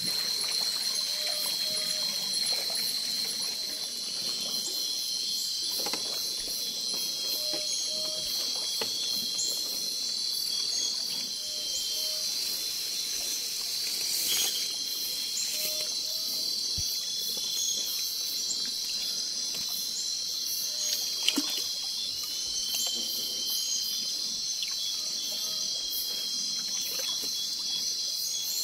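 Steady high-pitched chorus of forest insects, with water trickling and a short two-note call repeated every few seconds. A few sharp knocks, the loudest about 21 seconds in.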